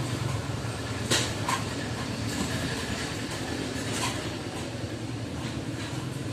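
Steady low mechanical hum of room background noise, with a few short clicks about a second in and again near four seconds.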